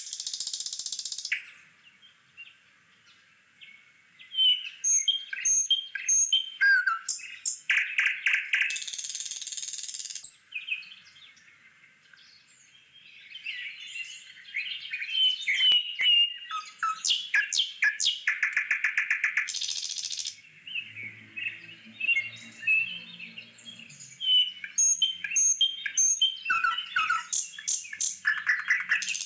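Birds chirping and singing together, with many short calls and rapid trills overlapping and pausing now and then.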